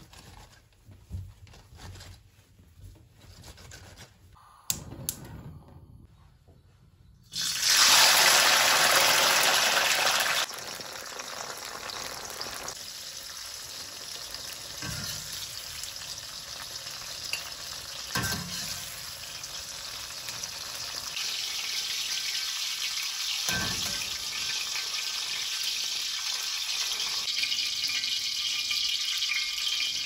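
Soft cloth rustling and patting at first, then about seven seconds in a sudden loud sizzle as green peppers go into hot oil, settling into a steady frying sizzle with a few soft knocks.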